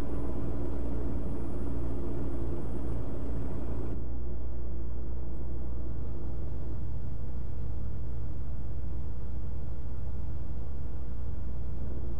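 Steady road and engine rumble of a semi truck travelling at highway speed, heard inside the cab.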